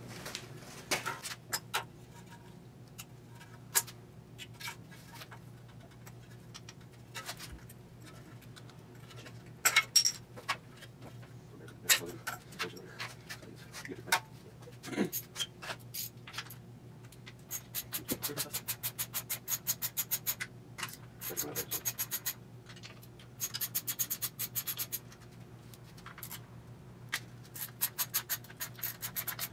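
Hand work on a GM 5.3L LS V8's ignition parts: scattered clicks, knocks and rubbing as spark plug wires and coil packs are pulled loose. From a little past halfway there are several runs of fast, even ratchet clicks as the coil-pack bracket bolts are turned out.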